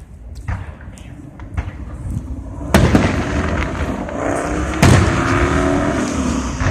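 Fireworks aerial shells bursting: a few faint pops early on, then two loud booms about three and five seconds in, each trailing off in a rumble and crackle, deep like cannon fire.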